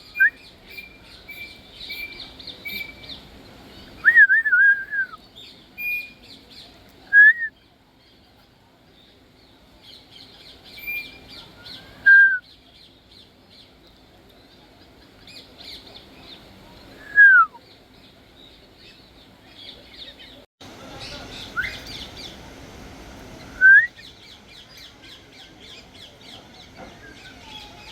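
African grey parrot giving short, clear whistles, each a single note sliding up or down, about seven of them a few seconds apart. A steady, fast, high chittering runs behind them.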